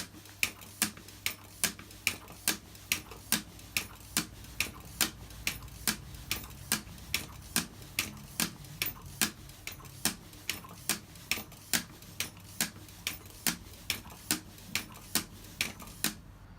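Manual air pump worked at a steady pace, a sharp click on every stroke, about two and a half strokes a second, inflating a motorcycle inner tube; the pumping stops just before the end.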